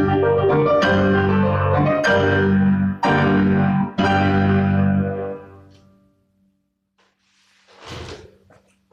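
Piano playing a series of loud, sustained closing chords, struck about a second apart, which then ring out and die away. A short noisy rustle follows near the end.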